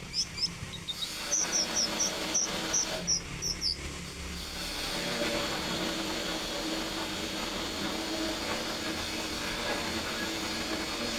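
Konin songbird calling: a run of about ten short, high chirps in the first four seconds, then a steady hiss with a low hum.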